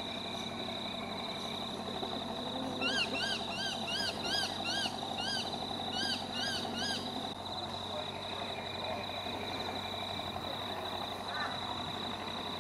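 Dusk wildlife chorus: a steady high insect drone with a low background chorus. From about three to seven seconds in, a bird calls a rapid series of about ten short rising-and-falling notes, two or three a second.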